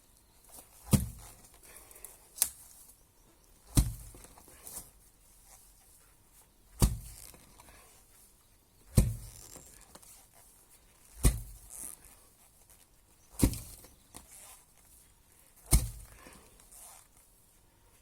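Eight sharp, heavy blows of a hand tool striking, spaced two to three seconds apart.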